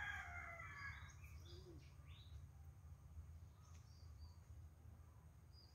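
Quiet rural ambience: the end of a rooster's crow fades out in the first second. After that there are only faint, scattered bird chirps over a low, steady rumble.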